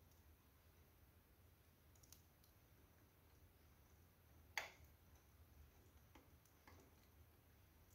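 Near silence with a low room hum, broken by one short sharp click about four and a half seconds in and a few much fainter ticks.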